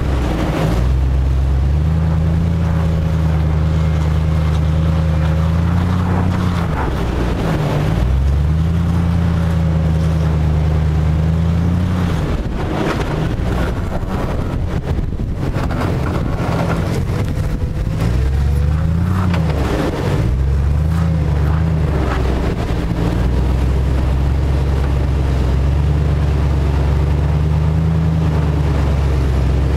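Jeep Grand Cherokee WJ engine working under load at low, steady revs on a slow off-road climb, its pitch dipping and rising several times in the middle as the throttle is eased and fed back in. Scattered short crunches of the tyres on dirt and gravel around the middle.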